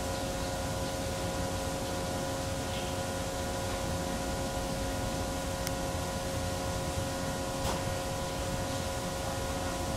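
Steady machine hum: several constant tones over an even hiss, with two faint clicks about six and eight seconds in.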